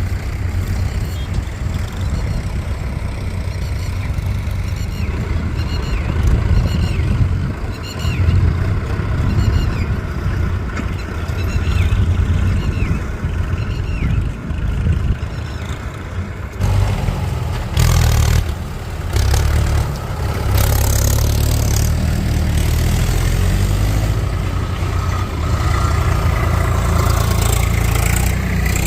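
Heavy diesel machinery engine running under load, its loudness rising and falling as it works. The sound changes abruptly a little over halfway through.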